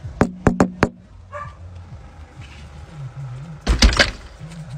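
Dog barking through the letterbox of a front door, with a quick burst of barks about three and a half seconds in. Before that, near the start, come four sharp clacks.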